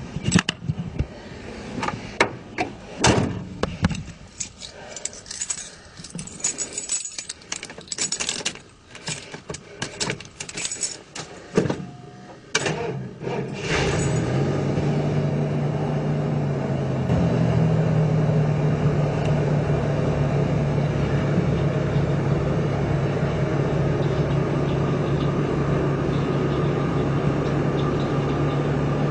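A string of clicks and knocks, then a 1989 Ford Econoline 350 van's engine starts about halfway through and settles into a steady idle. A few seconds after the start its idle speed steps up slightly.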